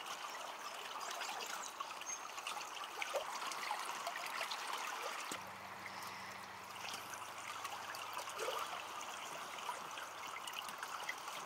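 River current flowing, a steady trickling rush of water.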